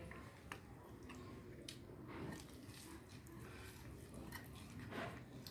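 A cat chewing fish, with a few short sharp clicks among the eating sounds, the loudest about five seconds in.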